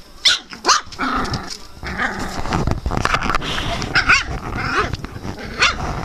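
Young English Shepherd puppies play-fighting: several short, high-pitched yelps and whines, with scuffling and rustling of bedding in between.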